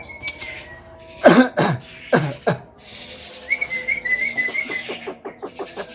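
Javan myna making mimicked sounds. A short whistle is followed about a second in by three loud, harsh calls falling in pitch. Near the end a wavering whistle runs over a quick series of short pulses, about five a second.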